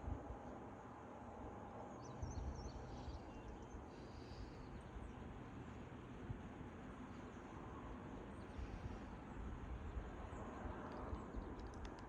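Faint outdoor ambience: a low, uneven rumble like wind on the microphone, with a few faint high chirps about two seconds in and again near the end.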